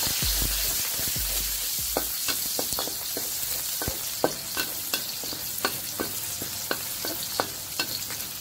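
Chopped garlic sizzling in hot oil in a wok, stirred with a metal spatula. The spatula clinks and scrapes against the wok in quick repeated strokes, about three a second, from about two seconds in.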